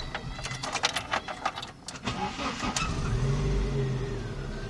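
Car engine started with a freshly repaired starter solenoid: about two seconds of rapid clicking and cranking, then the engine catches and runs steadily.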